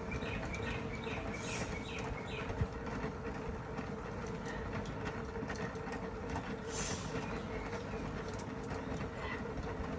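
Mini washing machine running with a steady hum, with light clicks and a few short falling squeaks in the first couple of seconds.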